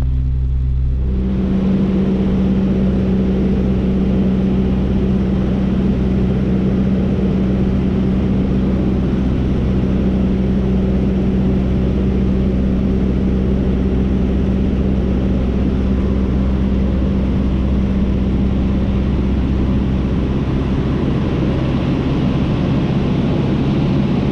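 Cessna 152's four-cylinder Lycoming piston engine and propeller droning steadily in flight, heard inside the cockpit with a hiss over it; the engine note shifts about a second in, then holds steady.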